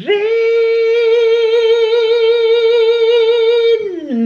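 A man's voice holding one long, high sung note with a slight vibrato, then sliding down about an octave near the end into a lower, wavering note: a drawn-out, theatrical sung greeting.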